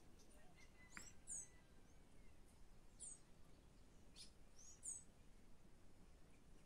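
Faint bird chirps over near silence: short high-pitched notes, each falling quickly in pitch, coming every second or so.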